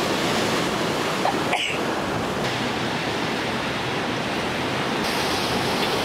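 Large ocean waves breaking against an ocean pool's concrete wall and washing over it: a steady, dense rush of surf.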